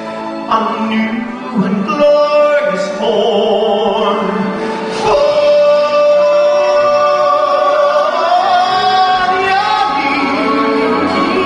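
Live orchestral Christmas music with a male lead vocal and female backing singers, recorded from the audience; about halfway through a long note is held.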